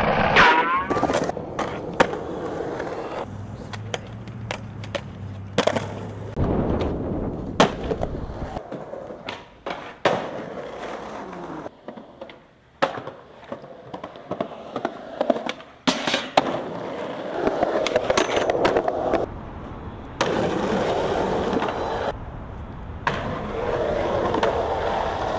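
Skateboards rolling on concrete and asphalt, broken by many sharp clacks from tail pops, board impacts and landings, over a string of separate clips.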